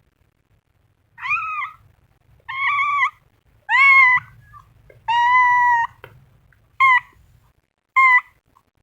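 A cat meowing six times in short, high calls, the longest about a second long, with pauses between them.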